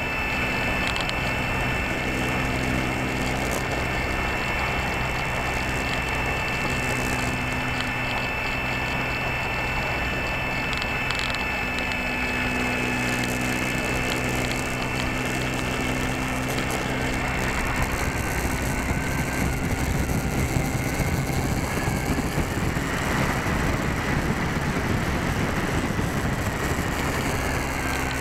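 Electric motor and propeller of a Slow Stick RC park-flyer, picked up by the plane's onboard keychain camera: a steady whine held at a few fixed pitches over rushing air noise. From about two-thirds of the way in it grows a little louder and noisier.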